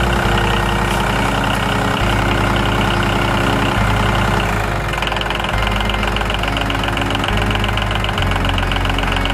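Tractor engine running steadily with a fast knocking beat.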